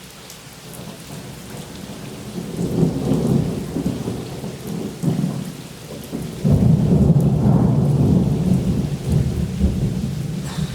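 Thunder rolling after a nearby lightning bolt, building a couple of seconds in and then a louder peal starting suddenly about six and a half seconds in, slowly fading. Rain falls steadily underneath.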